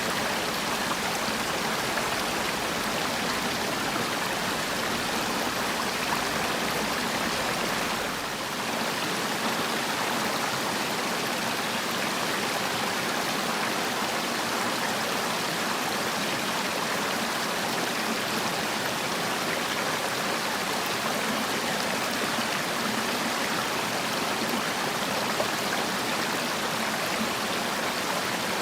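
Mountain stream water flowing, a steady rush of running water, with a brief slight dip in level about eight seconds in.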